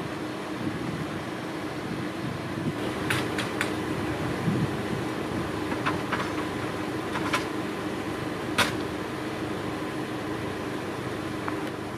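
A fire truck standing close by, running with a steady mechanical hum. Several short sharp metallic clicks and knocks come through it, two quick pairs a few seconds in and a louder one about two-thirds of the way through.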